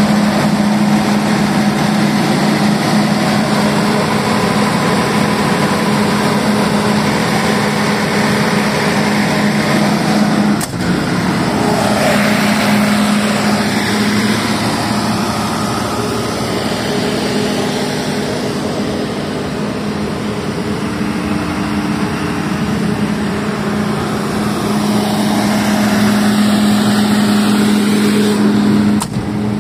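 FG Wilson 200 kVA diesel generator set running steadily at constant speed, a loud even engine hum that holds one pitch throughout. A short knock comes near the end.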